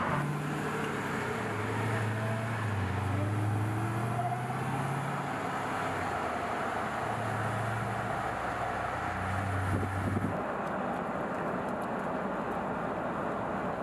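Dodge Durango SRT Hellcat's supercharged 6.2-litre HEMI V8 running at a light cruise, its low engine note rising and falling over road noise. About ten seconds in the sound changes to an even rumble without a clear engine note.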